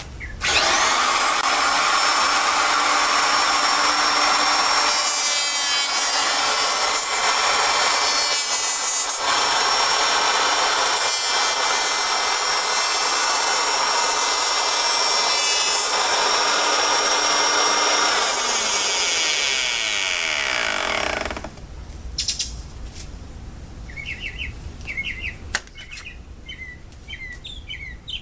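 Electric hand planer starting up and running with a steady high whine as it shaves a wooden board at a 1/64-inch cut depth. After about eighteen seconds it is switched off and its pitch falls as it winds down, stopping a little after twenty seconds.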